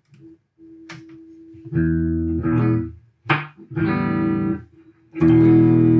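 Electric guitar played through a 1965 Fender Deluxe Reverb tube combo amp: a held note, then a few picked chords, the last and loudest ringing on near the end. It is a quick playing test of the amp after servicing, to confirm that it makes sound.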